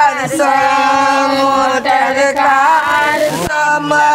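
Singing voices chanting in long, held notes, with a short break near the end.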